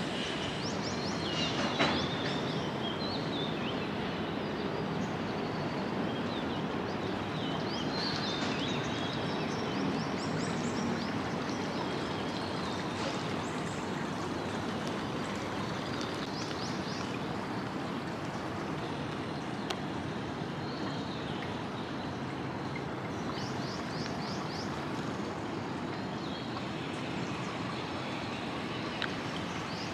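Steady outdoor background noise with short high chirps every few seconds.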